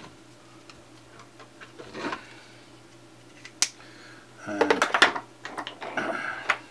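Light ticks and taps of an isopropyl alcohol pen tip dabbing on a small circuit board. Then, about four and a half seconds in, a louder two-second stretch of clattering and rustling as things are handled on the workbench.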